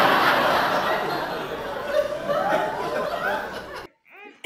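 Laughter mixed with voices over a noisy hiss, cutting off suddenly near the end.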